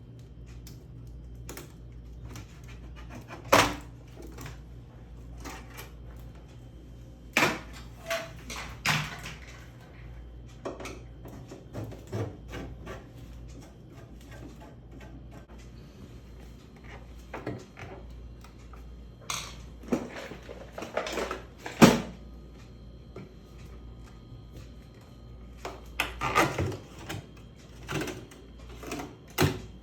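Irregular knocks and clicks, single and in short clusters, over a low steady hum; the sharpest knocks come about a few seconds in and again about two thirds of the way through.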